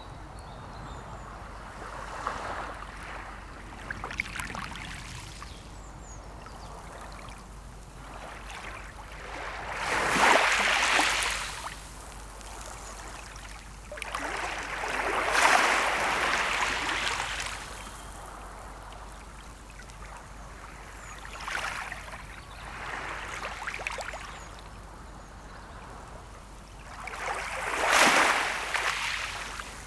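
Small sea waves washing in on the shore, each wash swelling and fading over a second or two, several times. The biggest washes come about a third of the way in, around halfway, and near the end.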